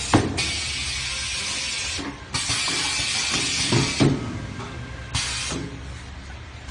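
Pneumatic diaper packing machine releasing compressed air in three hissing bursts: two of about a second and a half each, and a short one about five seconds in. Sharp mechanical clacks come near the start and at about four seconds, over a low machine hum.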